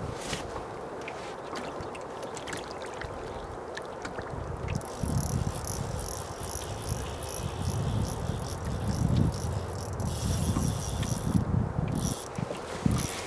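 Outdoor fishing-trip sound: a steady noise bed with low gusty rumbling like wind on the microphone. About a third of the way in, a steady high whirring joins it.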